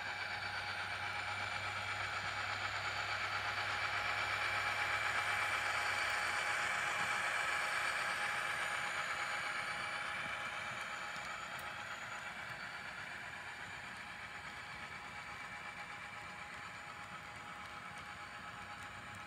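Model railroad freight train rolling by on its track: a steady rolling clatter of the cars' wheels on the rails that swells to a peak about five seconds in and then slowly fades as the train passes and moves off.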